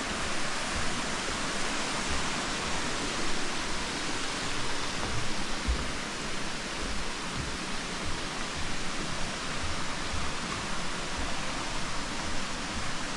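Steady rushing of water from a waterfall cascade, an even hiss with no let-up, with faint irregular low thuds underneath.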